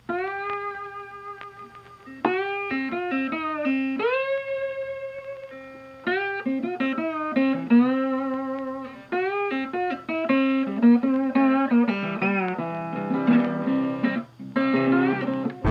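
Background music: a guitar playing a slow melody of single held notes, many sliding up into pitch, with quicker, busier notes toward the end.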